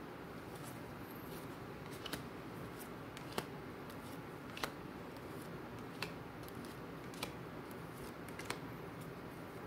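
Tarot cards being laid down one at a time on a table: about six crisp clicks, roughly one every second and a quarter, starting about two seconds in, over a faint steady room hiss.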